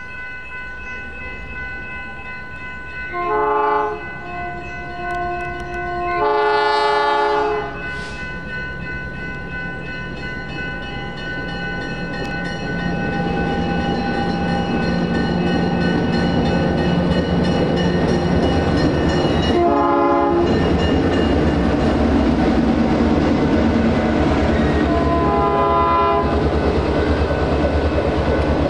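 Grade-crossing bells ringing steadily while the lead Alco RS11 diesel locomotive of a passenger train sounds its air horn four times: a short blast, a longer one, then two more short blasts well apart. From about halfway the locomotive's engine and the rolling cars grow louder with wheel clatter as the train passes close by.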